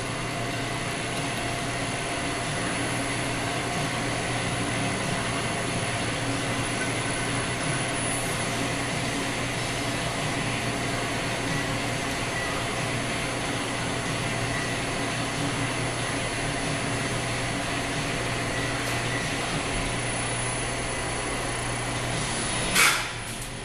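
Anca FastGrind 5DX CNC tool and cutter grinder running: a steady machine hum with a low drone and a faint high whine. Near the end there is a single sharp clack, after which the running sound drops a little.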